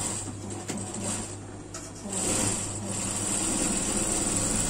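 Rustling and swishing of crushed velvet fabric being handled and spread out over a table, louder from about halfway in, over a steady low hum.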